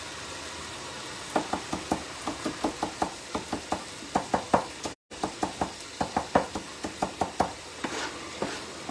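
Chef's knife chopping parsley on a wooden cutting board, rapid knocks about five a second starting about a second in, over the steady sizzle of a frying pan. The sound drops out completely for a moment midway.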